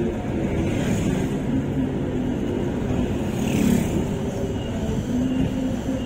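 Steady low rumble of a moving road vehicle, with a brief louder swell about three and a half seconds in.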